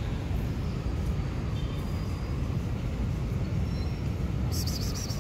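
Steady low outdoor rumble, with a few faint high chirps and a brief high-pitched buzzing burst near the end.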